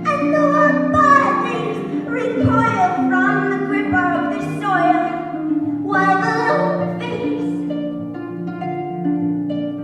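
Pedal harp playing a steady stream of plucked notes, with a woman's voice singing long, sliding notes over it. About seven seconds in the voice stops and the harp carries on alone.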